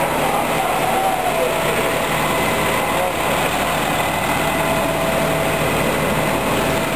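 Fire engine idling close by: a steady, loud engine noise with a constant low hum that does not change.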